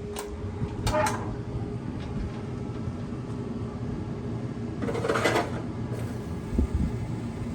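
Pickle juice being spritzed onto smoking ribs from a spray bottle: a short hissing spray about five seconds in, over a steady low rumble. A few knocks come from the smoker around it.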